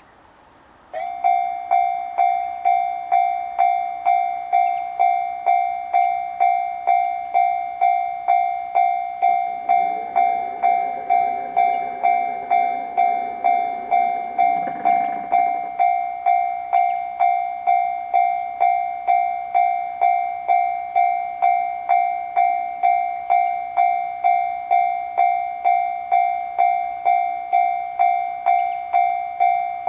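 Japanese railroad crossing's electronic warning bell starting up suddenly about a second in, then ringing a bright 'kan-kan' in an even, rapid repeat: the crossing is warning that a train is coming. A lower, humming sound joins it for about six seconds midway.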